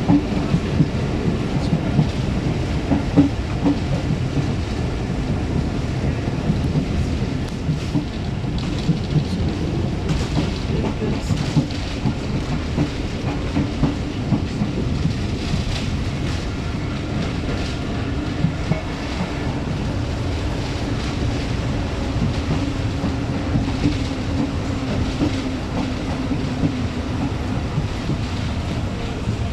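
Moving train running steadily along the track: a continuous rumble with the rapid clatter of wheels over the rails.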